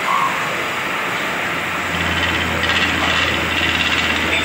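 Wood lathe running with a hand-held turning gouge cutting into a large spinning wooden vessel: a steady low motor hum under a hissing, rasping cut that grows stronger about two seconds in.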